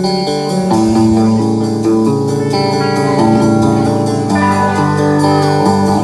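Live rock band playing an instrumental passage: electric guitars and bass guitar holding and changing chords over a steady drum beat, with no vocals.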